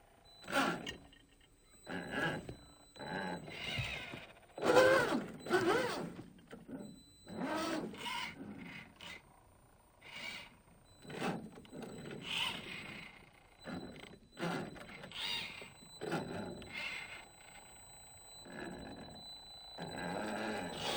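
Brushed electric motor and gear drivetrain of an RGT EX86100 1/10-scale RC rock crawler whining in short throttle bursts, its pitch rising and falling with each burst, about one every second or two.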